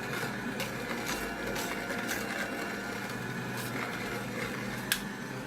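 Cold-press slow juicer running: a steady motor hum with irregular sharp clicks, typical of the auger crushing cucumber.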